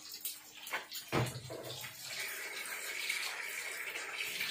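Egg frying in hot oil in a pan on a gas burner, sizzling, the sizzle swelling into a steady hiss from about halfway. A single knock about a second in.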